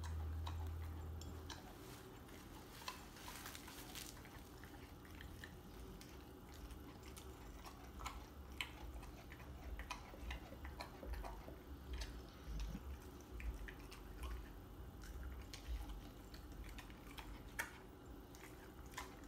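A dog chewing on a raw oxtail: faint, irregular clicks and crunches of teeth working on the meat and bone.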